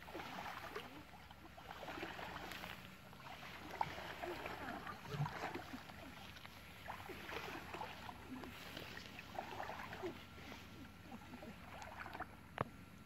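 Shallow muddy water sloshing and splashing faintly and irregularly as people wade through it and drag a fishing net, with a sharp knock near the end.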